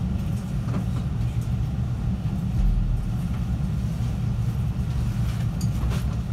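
Steady low rumble of a JR 313-series electric train, heard from inside the car, with a few faint clicks.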